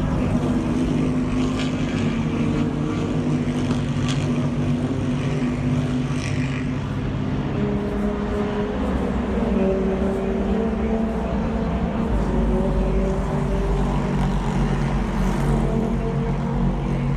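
Race car engines running on track: a steady drone of several engine tones that shift up and down in pitch.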